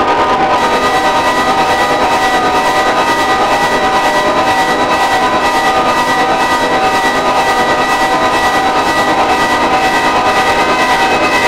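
Electronic sequencer drone: several steady tones held at once over a noisy hiss, some of them not harmonically related, with a fast, even pulsing.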